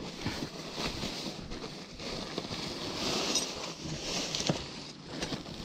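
Plastic bag rustling and crinkling as gloved hands handle it, with wind buffeting the microphone. A sharper click about four and a half seconds in.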